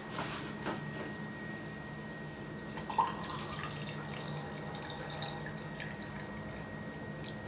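Orange juice pouring from a glass pitcher into a champagne flute: a steady trickle of liquid filling the glass, with one short, sharper knock about three seconds in.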